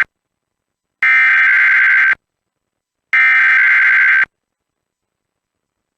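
Emergency Alert System SAME header: loud bursts of raspy, buzzing digital data tones. Each burst is just over a second long; two begin about one and three seconds in, with a second of silence between them. They encode the alert header of an EAS required weekly test.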